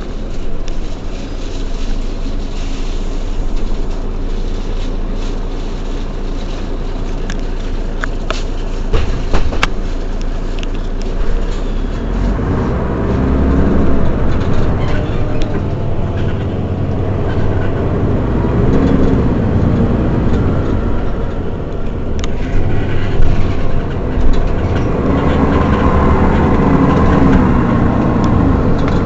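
Mercedes-Benz Citaro city bus engine idling steadily while the bus stands still, with a few sharp clicks about eight to ten seconds in; the running sound gets a little louder and rougher from about twelve seconds on.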